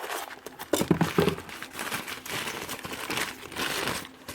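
Plastic packaging crinkling and rustling, with some tearing, as a new part is unwrapped by hand. There are a few louder knocks about a second in.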